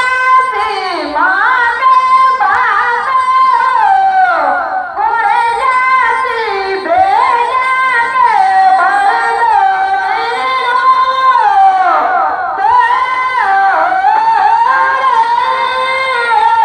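A solo voice singing through horn loudspeakers, holding long notes and sliding between them in a slow melody.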